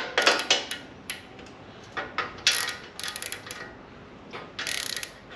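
Socket wrench ratchet clicking in several short runs as a nut is tightened onto a bolt, with quiet pauses between the runs.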